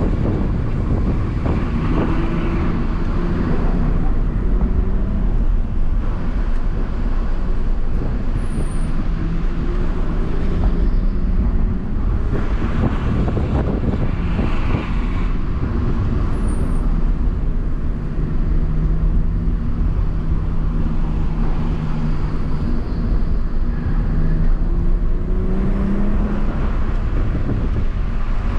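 BMW M140i's turbocharged 3.0-litre straight-six heard from inside the cabin, its pitch rising and falling as the car accelerates and eases off through a run of corners, over steady tyre and road noise.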